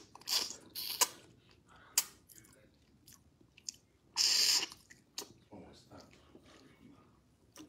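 Close-up eating sounds of a person biting and chewing seafood from fisherman soup, with scattered wet mouth clicks. There is a louder noisy moment about four seconds in that lasts half a second.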